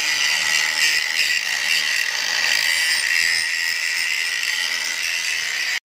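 Handheld electric angle grinder with an abrasive disc grinding steel, running steadily under load with a high-pitched grinding sound.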